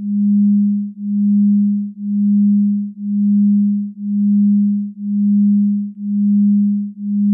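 A low, steady electronic tone that swells and fades in an even pulse about once a second.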